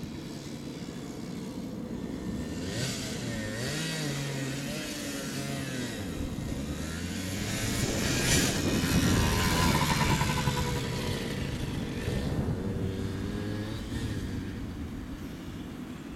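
Honda CRM80 two-stroke motorcycle engine revving up and down as the bike rides over rough ground. It grows louder to a peak about eight to ten seconds in, then fades as the bike moves off.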